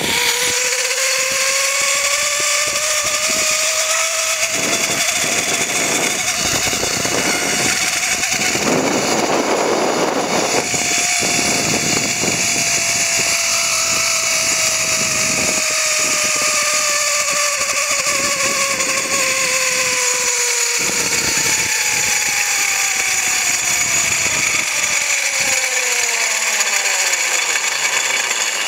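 Zipline trolley pulleys whining along the steel cable over a steady hiss, the whine rising in pitch as the rider picks up speed in the first few seconds, then falling slowly as the trolley slows toward the landing platform near the end.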